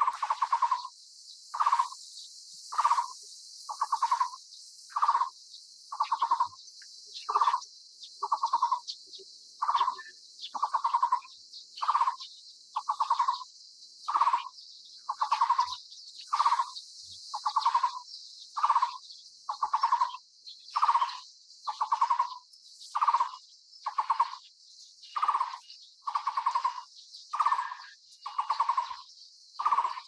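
Taiwan barbet calling: a short note repeated steadily about once a second, with a steady high hiss behind it.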